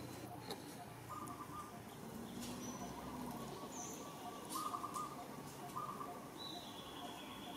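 Faint, high-pitched animal chirps and squeaks: a few short pulsed calls, then a longer, slightly falling call near the end.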